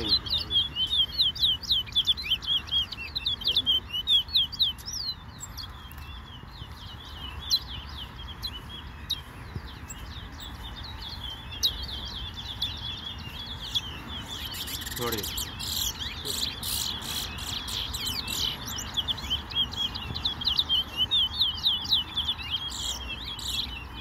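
Caged songbirds singing long runs of quick, high chirping notes in a bird-singing contest. The song is busiest in the first few seconds and again through the second half, and thinner in between.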